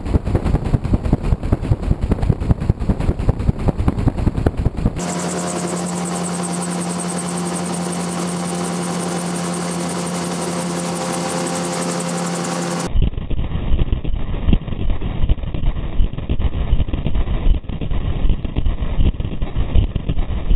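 Airflow rushing over a GoPro mounted on a spinning gyrocopter rotor blade, pulsing rapidly and evenly with the rotor's turning. About five seconds in it switches to the gyrocopter's engine droning steadily at an unchanging pitch, heard from the cockpit. About thirteen seconds in it returns to the pulsing rush over the blade.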